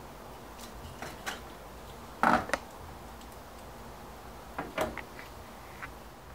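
A few light clicks and knocks of metal hand work: a flathead screwdriver prying the old seal seat out of a pump impeller's hub, with the parts handled on a workbench. The loudest knock comes a little over two seconds in.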